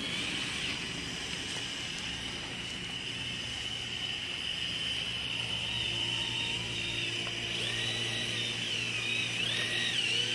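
Small electric motor and gear drive of a homemade RC tractor running with a steady high-pitched whine as the tractor pushes soil with its front blade. The pitch wavers up and down in the last few seconds.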